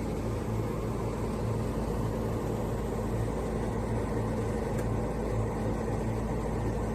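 Electric dehumidifier running: a steady mechanical hum from its fan, with a low electrical drone under it.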